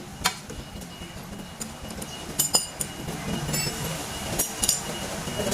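Metal tools and brake parts clinking and tapping against each other, several separate sharp clinks with a brief ring, over a low steady background hum.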